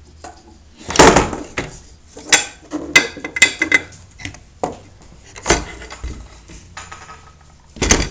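Metal clinks and knocks from handling a homemade 3/4-inch black steel pipe shotgun barrel while a 12-gauge shell is fitted into it: a loud knock about a second in, a quick run of clicks over the next few seconds, then scattered knocks.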